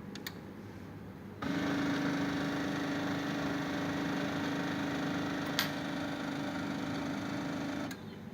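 Printer running with a steady mechanical hum that starts about a second and a half in and cuts off suddenly near the end, with one sharp click partway through; its owner calls it a strange sound.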